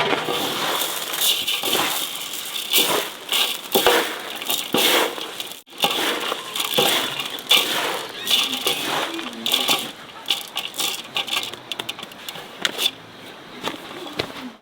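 Irregular crackling and rustling with many small clicks and knocks, as of hands working with dry material.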